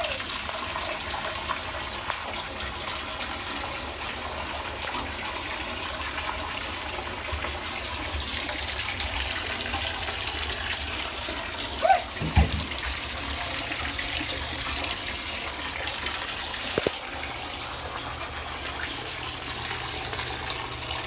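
Water running steadily from the tap into a bathtub, with a brief knock about twelve seconds in and a sharp click near seventeen seconds.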